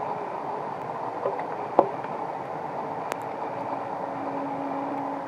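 Electric whine of a Traxxas TRX-4 G500 RC crawler's brushless motor and gearbox at crawling speed as the tyres work over rock and wet leaves. A sharp knock comes near the two-second mark, and a steadier whine sets in toward the end.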